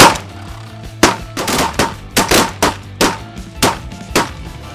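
A volley of shotgun fire from several hunters: about eight shots in quick, uneven succession, some louder than others, over background music.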